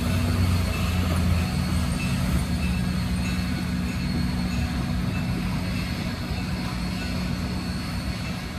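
A train running: a steady rumble with a low hum and no clear beat, easing off slightly toward the end.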